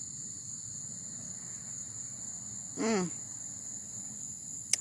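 Steady high-pitched chirring of insects in the garden, with a short falling hum from a woman's voice about three seconds in and a brief click near the end.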